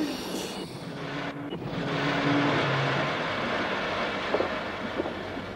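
Cartoon sound effect of a train running: a steady rushing noise that swells about a second and a half in and then holds, with a low drone briefly beneath it.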